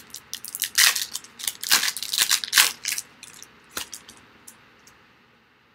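Foil wrapper of a Topps Chrome baseball card pack being torn open and crumpled: a quick run of sharp crackles that thins to a few single ones and dies away near the end.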